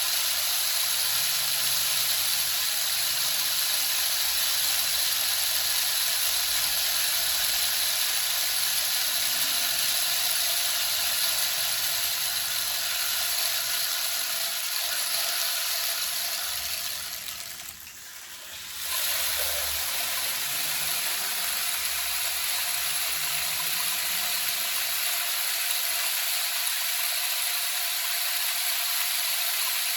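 Rain stick: a continuous rattling hiss of pellets cascading through it. It dips briefly a little past halfway, then the cascade starts again.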